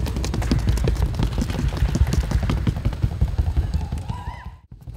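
Paso Fino horse's hooves beating rapidly in the short, even four-beat fino gait, a quick run of small clicks. The sound drops out briefly near the end.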